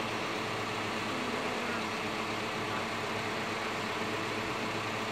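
Fire engine's motor idling steadily, an even low hum.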